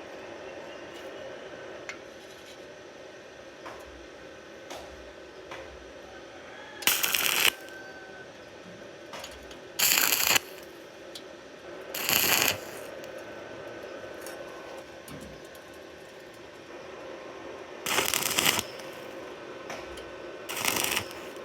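Electric arc welding on thin iron in short stitches: five brief bursts of arc noise, each under a second and spaced a few seconds apart, over a steady machine hum.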